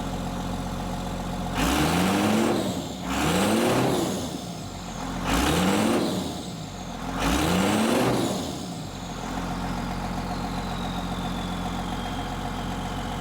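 Cummins turbo-diesel in a 2000 Ram 2500 idling steadily through its 3-inch exhaust, then revved four times in quick blips that each rise and fall in pitch, before settling back to idle.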